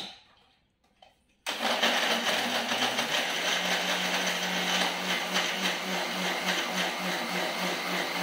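Philips mixer grinder switched on about a second and a half in and running steadily, blending mango pieces, milk, ice and sugar in its steel jar into a shake, with a steady motor hum under the whirring of the contents.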